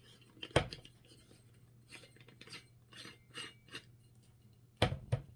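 Hands swapping the light bulb in a small Scentsy plug-in wax warmer: a sharp knock, a run of small clicks and scrapes, then two louder knocks near the end.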